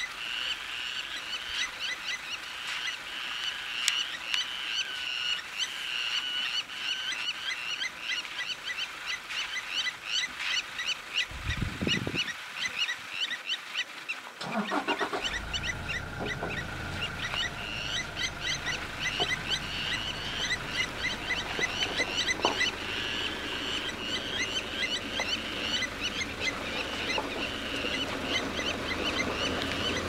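Blacksmith lapwings giving rapid, repeated sharp metallic 'tink' calls, their alarm call in defence of the nest against the buffalo standing over it.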